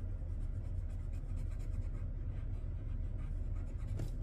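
Colored pencil scratching on a paper card in repeated short strokes as a small shape is colored in, over a steady low hum.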